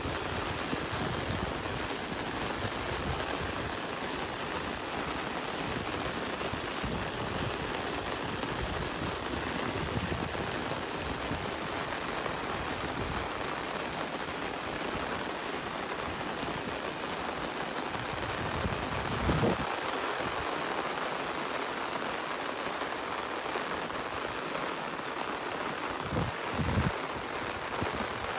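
Steady rain falling, a continuous even hiss, with a couple of brief low thumps about two-thirds of the way through and again near the end.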